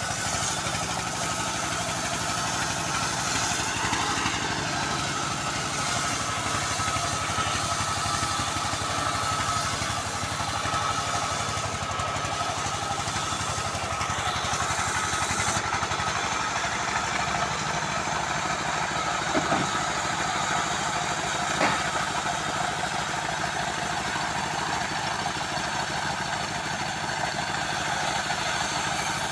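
Home-built band sawmill running steadily while sawing a long teak log. The high hiss drops away about halfway through, and there are two brief knocks about two-thirds of the way in.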